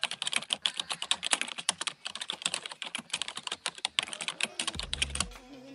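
Rapid computer-keyboard typing clicks, a sound effect for a question appearing letter by letter on screen. The clicks stop about five seconds in as a low bass note comes in.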